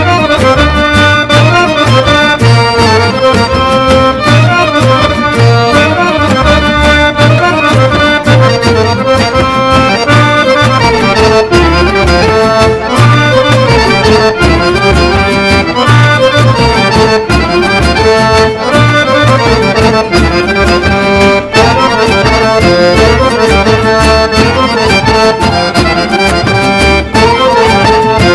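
Live Serbian folk dance music from Kosovo Pomoravlje, led by accordion, played by a stage orchestra with a steady, driving beat.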